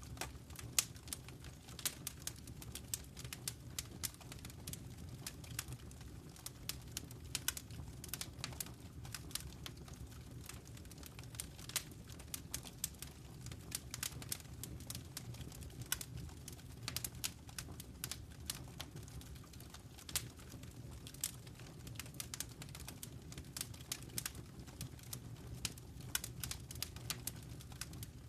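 Wood fire in a fireplace crackling: many irregular sharp snaps and pops over a steady low rumble of burning.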